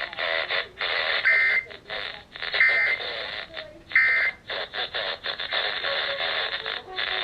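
Emergency Alert System end-of-message tones: three short, buzzy data bursts about 1.4 seconds apart, marking the close of the national test alert. They sound over continuing broadcast audio.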